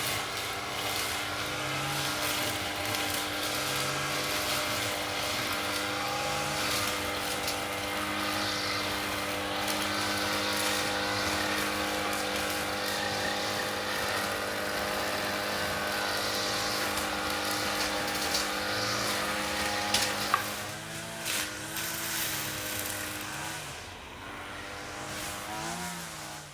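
Lawn mower engine running steadily. About two-thirds of the way through, a couple of sharp clicks, then the engine note drops, wavers and fades out.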